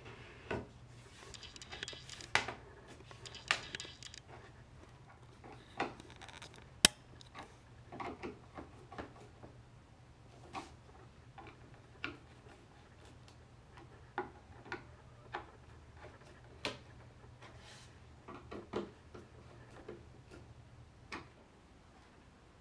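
Light knocks and clicks of a wooden panel and its screws being handled and driven in with a hand screwdriver, scattered irregularly, with one sharp click about seven seconds in. A faint steady hum sits underneath and stops near the end.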